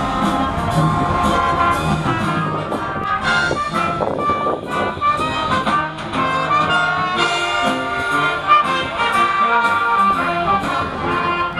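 Brass-led music with a melody and percussion strikes keeping a beat.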